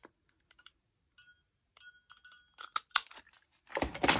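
A hand-held lever hole punch is worked through a strip of paper and set down. There are sharp clicks, the loudest about three seconds in, a faint ringing clink partway through, and paper rustling near the end.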